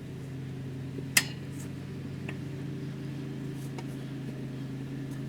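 Steady low mechanical hum, with a single sharp click about a second in and a few faint ticks after it.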